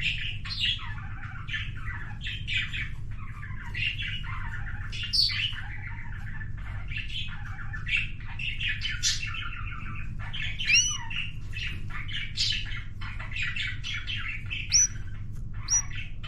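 Young canary singing a long, rambling song of fast chattering trills, broken by a few sharp rising whistles in the second half: the unpolished song of a bird that has only just learned to sing.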